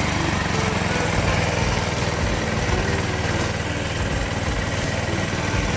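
Kama diesel engine idling steadily, running after a top overhaul.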